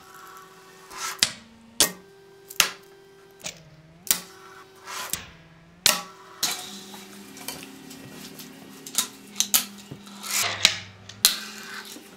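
Fingerboard clacking against a hard ledge: a dozen or so sharp, irregular clicks from the tail popping and the trucks and deck landing and grinding, with fainter wheel rolling between them.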